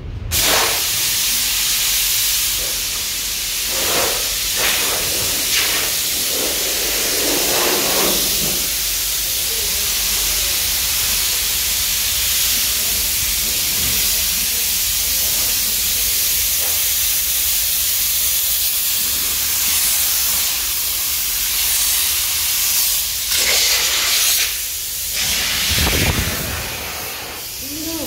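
Compressed-air blow gun hissing steadily, with a few brief louder surges, blowing sanding dust off the camper body before painting.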